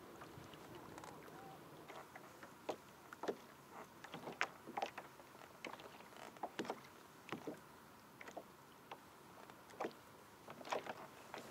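Small waves lapping and slapping against a plastic kayak hull in irregular light splashes and ticks over a faint, steady hiss.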